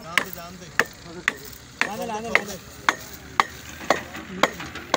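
Sharp taps about twice a second, evenly spaced, over a faint scraping noise.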